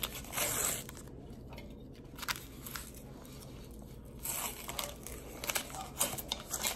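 Packaging being pulled and torn off a new mug: short bursts of crinkling and tearing with scattered clicks, several together near the start and again in the second half.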